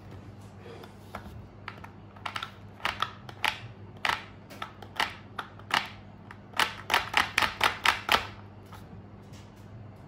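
Fingernails tapping and clicking on the ridged plastic screw cap of a plastic coolant bottle: a run of sharp, irregular ticks that come faster and louder toward the end, then stop. A faint steady hum lies underneath.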